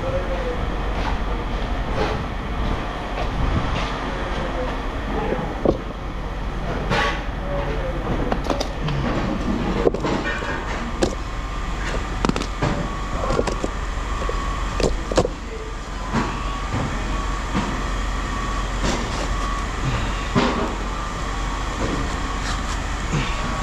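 Scrap metal clanking and knocking at irregular moments over a steady low machinery rumble, with a faint thin metallic ringing in places.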